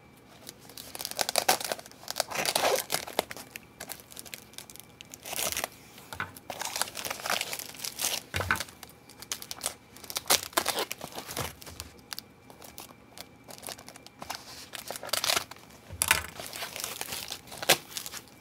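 Plastic and foam packaging crinkling and tearing in irregular bursts as it is cut open with small scissors and pulled off.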